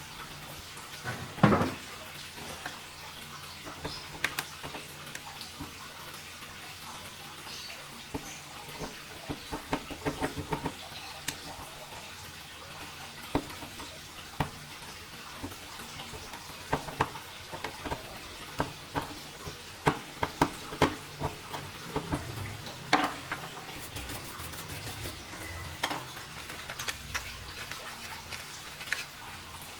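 Scattered clicks and taps of small hard objects being handled, typical of hands working on laptop parts with tools, over a steady faint low hum. One louder knock comes about a second and a half in.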